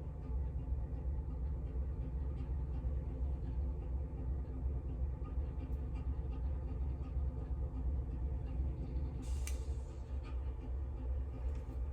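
A steady low hum with faint steady tones above it, and one light click about nine seconds in.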